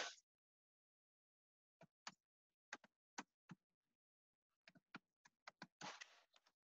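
Faint keystrokes on a computer keyboard as a sentence is typed: scattered single clicks, then a quicker run of them about five seconds in. A short burst of soft noise comes at the very start and another near the end.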